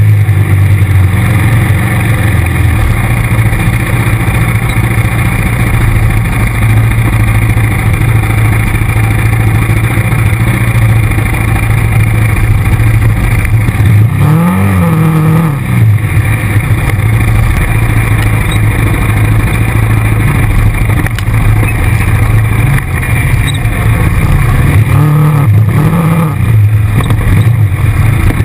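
ATV engine running steadily under load on a dirt trail. The revs rise and fall briefly about halfway through, and again near the end.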